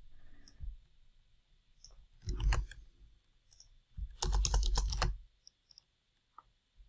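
Computer keyboard typing in two quick bursts of keystrokes, the second longer and louder, with a few single mouse clicks between them.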